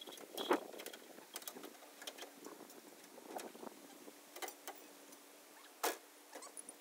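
Scattered light clicks and knocks of dock hardware and tools being handled, with one sharper knock about six seconds in. A faint steady hum runs underneath through the middle.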